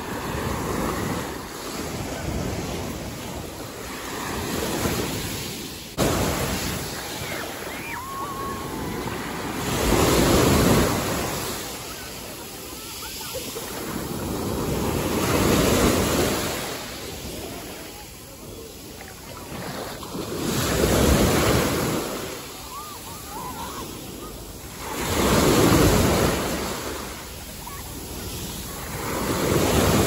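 Sea waves washing onto a beach, the surf swelling and falling away about every five seconds.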